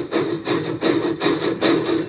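Steam locomotive chuffing steadily at about two and a half exhaust beats a second.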